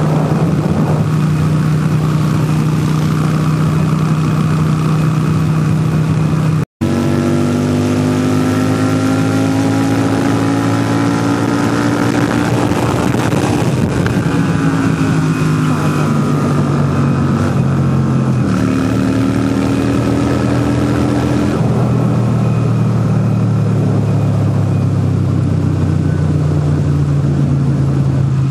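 Stage 1 Harley-Davidson Sportster 883's air-cooled V-twin running through Vance & Hines Short Shots exhaust, heard from the rider's seat: steady cruising, a brief cut about seven seconds in, then the engine pitch rising as it accelerates for several seconds, with later steps in pitch from gear changes.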